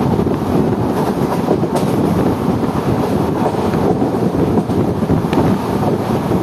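Passenger express train running at speed, heard from an open door: a steady, loud rumble of wheels on rail, with wind on the microphone.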